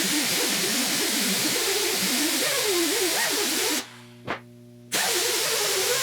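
A power-driven brass wire wheel scrubbing an aluminium intake manifold: a steady hiss of wire on metal, with a motor whine that wavers as the load changes. It stops for about a second partway through, then starts again.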